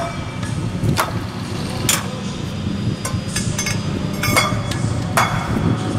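Sharp metal-on-metal clanks, about once a second, each ringing briefly, over a steady low rumble.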